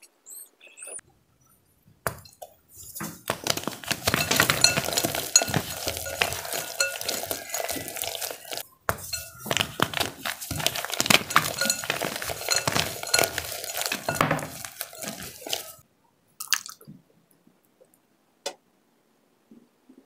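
A block of red-dyed homemade gym chalk being crushed by hand: a dense run of crumbling crunches and crackles, with a brief pause midway, ending in a few single cracks.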